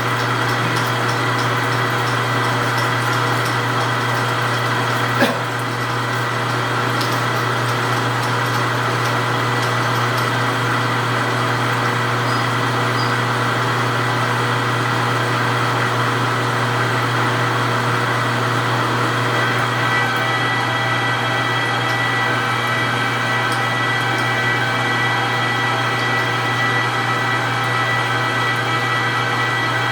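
Precision Matthews 1640 metal lathe running at low speed while a drill fed from the tailstock bores into a cold rolled steel bar with coolant: a steady machine hum. A single sharp click comes about five seconds in, and a thin high steady tone joins about two-thirds of the way through.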